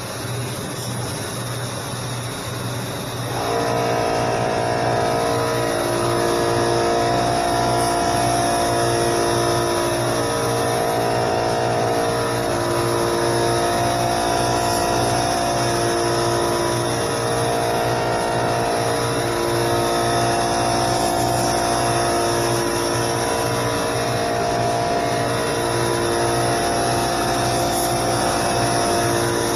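Background music with sustained chords that change every couple of seconds, coming in about three seconds in over a steady low hum and hiss.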